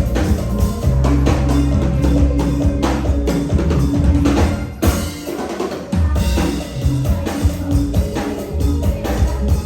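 Isan toei-style dance music with a drum kit and heavy bass beat and sustained melody lines; the bass and drums drop out for about a second around five seconds in, then the beat comes back.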